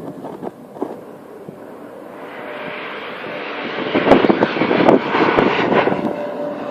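Jet airliner on its landing approach, its engine noise swelling from about two seconds in to a loud rushing peak, with a faint steady whine underneath.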